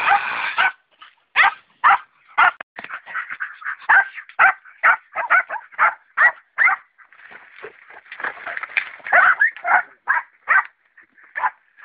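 Terriers barking and yipping excitedly, a rapid run of short, high barks, a couple or more a second.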